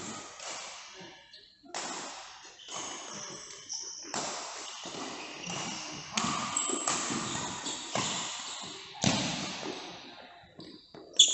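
Badminton rally: a string of sharp racket-on-shuttlecock hits, irregularly about a second apart, each with a short ringing decay. One louder hit comes about nine seconds in.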